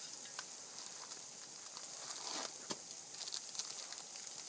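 Campfire crackling: scattered sharp pops and snaps over a steady hiss.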